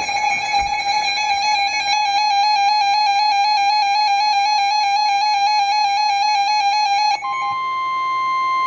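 Emergency alert tones: a steady EAS attention signal, then a sudden switch about seven seconds in to a single steady tone, the NOAA Weather Radio warning alarm tone that starts a new alert.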